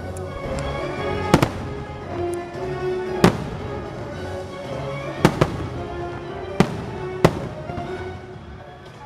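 Fireworks bursting in about six sharp bangs at irregular intervals, two of them in quick succession about five seconds in, over the fireworks show's music.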